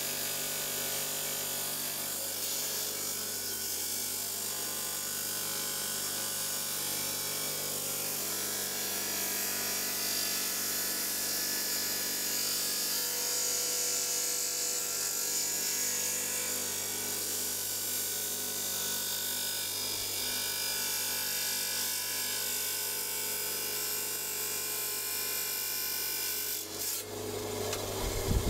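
Electric stone-cutting saw running, its blade grinding steadily through an agate nodule over a constant motor hum. About a second before the end the grinding changes abruptly and a few louder knocks follow.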